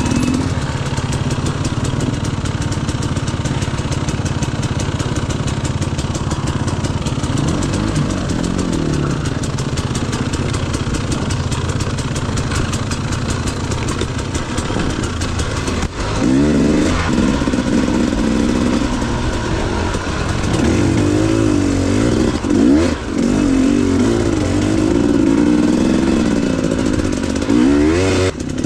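KTM 250 EXC two-stroke enduro dirt bike engine being ridden, running steadily at low revs for the first half, then revving up and down repeatedly from about halfway.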